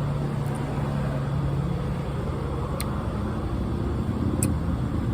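A car's engine running with a steady low hum, heard from inside the vehicle. Two faint clicks come in near the middle and toward the end.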